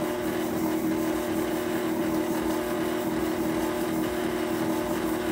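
KitchenAid electric mixer running steadily on its lowest speed, its motor giving a steady hum with a clear pitch as the beater creams butter, sugar and shortening together.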